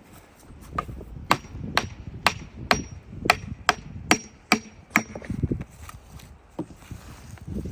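About ten sharp hammer blows, roughly two a second, each with a brief metallic ring, struck on a big red oak log, then stopping about five seconds in.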